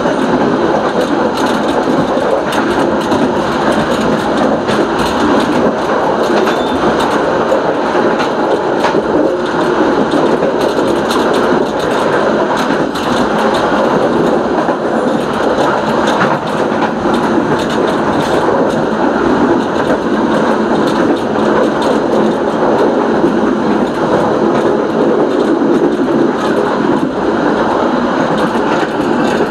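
Train running along the track: a steady rumble of wheels on rail, with scattered clicks and knocks from the running gear.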